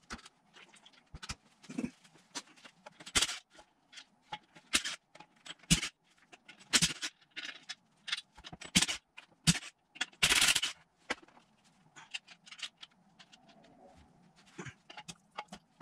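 Hand tools and bolts clinking and knocking on an RB25 manual gearbox casing as the 12 mm front-plate bolts are undone, in irregular sharp knocks with a longer scrape about ten seconds in.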